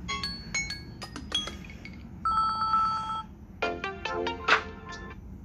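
Samsung Galaxy Tab A7 ringtone melodies playing: short, bright, bell-like electronic notes, a held two-note tone near the middle, then a quick run of notes near the end.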